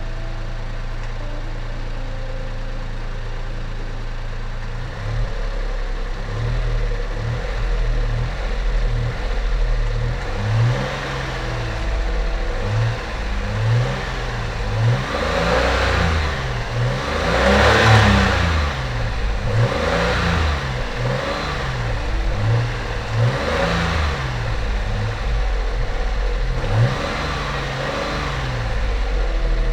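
Daihatsu Xenia 1000's three-cylinder petrol engine idling steadily, then revved in repeated quick blips from about five seconds in, the pitch rising and falling with each one. It is being test-run after its throttle body and idle speed control valve were cleaned.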